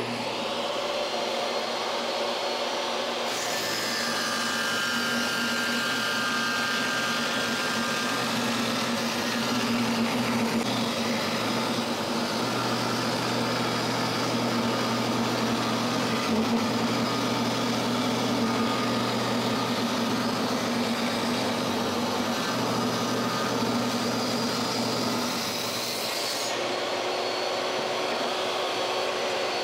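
Portable jobsite table saw switching on and running, its blade ripping a long hardwood board lengthwise to cut the piano molding free. The cut starts about three seconds in and ends near the end, after which the saw runs without load.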